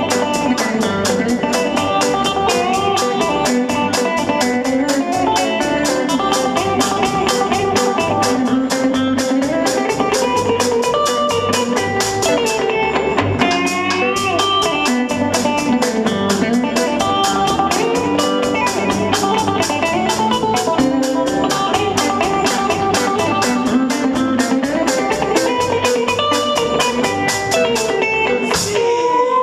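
Telecaster-style electric guitar playing a bluesy instrumental lead, with a drum kit keeping a fast, steady cymbal beat of about five ticks a second.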